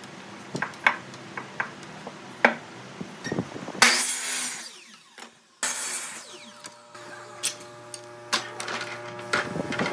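Woodworking shop sounds: a series of sharp knocks, two harsh noisy bursts near the middle, then a machine motor humming steadily through the last third with more knocks over it.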